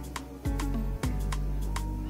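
Instrumental background music: a slow, mellow beat with a deep bass that slides down in pitch about half a second in.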